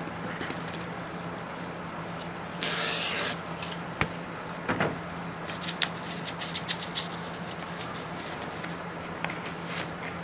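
Toothbrush scrubbing degreaser over the engine case parts of a Vittorazi Moster 185 paramotor engine: a run of light scrapes and small taps. One short hiss about three seconds in is the loudest sound.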